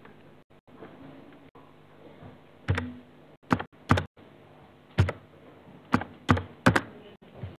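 Computer keyboard keys being pressed: seven sharp, separate keystrokes at uneven intervals, starting nearly three seconds in.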